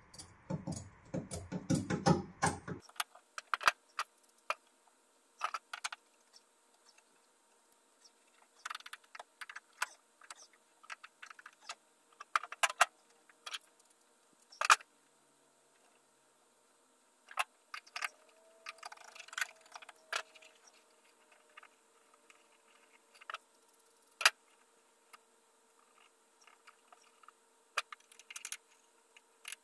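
Scattered small clicks, taps and rustles of hands working headliner cloth and its metal retaining strips into a car's body panel, busiest in the first few seconds, over a faint steady hum.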